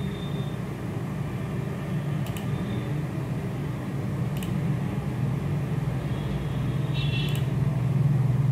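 Steady low hum of background noise, with a few sharp clicks of a computer mouse placing polyline points, about two seconds apart.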